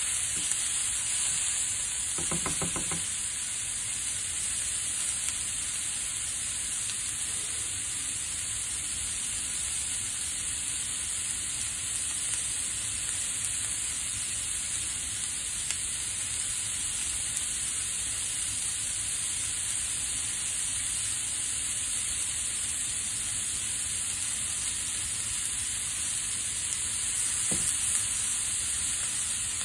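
Sausage pieces and sliced onions sizzling steadily in a nonstick frying pan, with a spatula stirring them at the start and again near the end.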